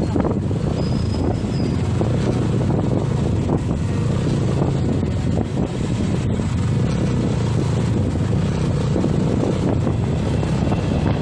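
Small motorcycles and scooters riding in a group at a steady pace with their engines running, and wind rushing over the microphone.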